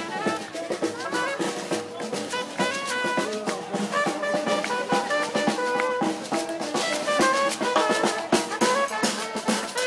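Lively music with brass horns playing held, stepping phrases over drums and percussion.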